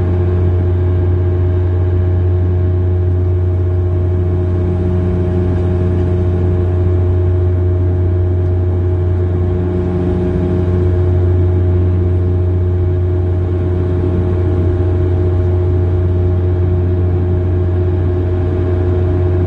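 Airliner cabin noise in flight: a steady low rumble of engines and airflow, with a constant droning hum.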